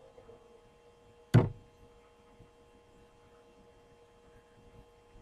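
A single sharp knock about a second and a half in, over a steady faint electrical hum with a few whining tones.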